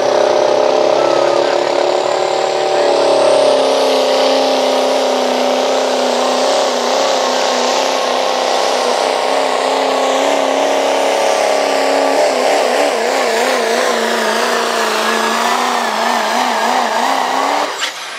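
Diesel pickup truck pulling a sled at full throttle, its engine held at high revs under heavy load. Its pitch wavers up and down through the second half, then falls off sharply near the end as the throttle is let off.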